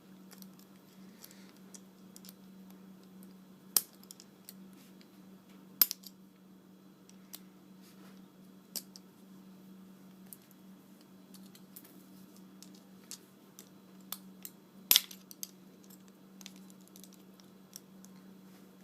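Scattered small clicks and taps as the plastic and metal parts of an LED lightbulb are worked at by hand, the sharpest about four, six and fifteen seconds in, over a low steady hum.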